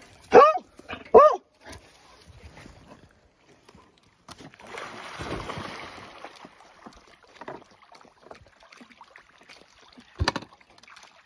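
A dog barks twice in quick succession, then about four seconds in a dog leaps into the lake with a splash that lasts a couple of seconds. A single sharp thump comes near the end.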